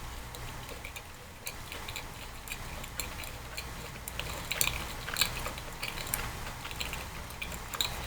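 A person chewing a soft glazed raised donut, with many small wet mouth clicks and smacks, busiest around the middle.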